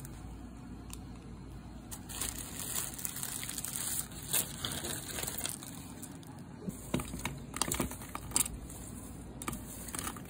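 Plastic snack bags crinkling and dry snacks (popcorn, marshmallows) being poured and stirred by hand into a glass bowl: irregular crackling rustles with sharp little clicks and clatters, busiest about four seconds in and again around seven to eight seconds.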